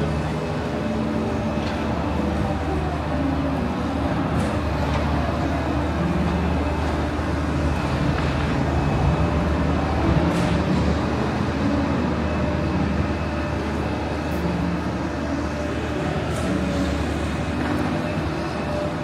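Steady vehicle rumble with a constant low hum, and faint voices of people nearby.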